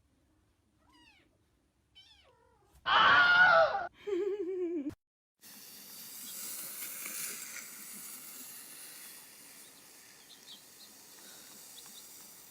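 Domestic cat meowing: a few faint short mews, then a loud meow about three seconds in and a lower meow that falls in pitch just after it. A steady background hiss follows.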